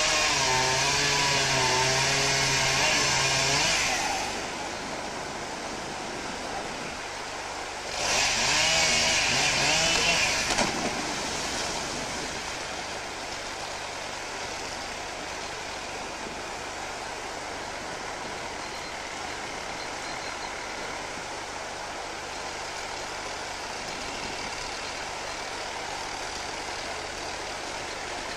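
A motor engine running with a wavering pitch, loud for the first four seconds and again from about eight to ten and a half seconds in, over a steady rush of a flooded river.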